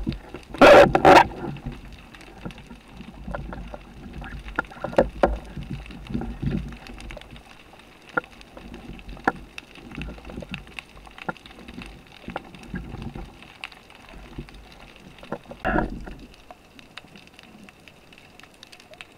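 Underwater sound picked up by a diver's camera: muffled water movement with many small scattered clicks, and a loud rushing burst about a second in and a shorter one a few seconds before the end.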